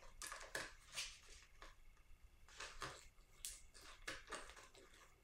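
Faint, irregular clicks and light scrapes of small plastic and metal RC truck kit parts and a hand driver being handled during assembly.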